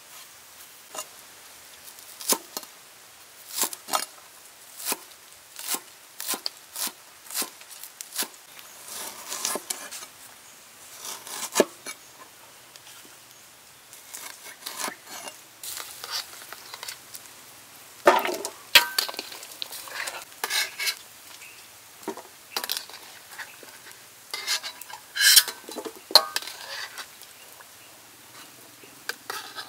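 Irregular clinks, taps and knocks of food preparation: a knife against a plate, a cleaver cutting through a lime onto a wooden board, and the clatter of a steel tray being handled. The knocks come in denser, louder clusters about halfway through and near the end.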